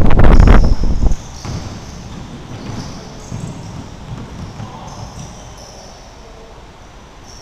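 Basketball game on a hardwood gym floor: a loud run of close thumps and rumble for about the first second that stops suddenly, then fainter ball bounces and short high sneaker squeaks as play moves away.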